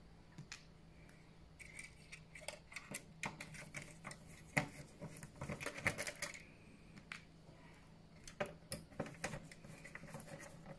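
Scattered light clicks and small metallic taps of screws, a screwdriver and metal parts being handled while a PlayStation 4 Pro is taken apart, over a faint low hum.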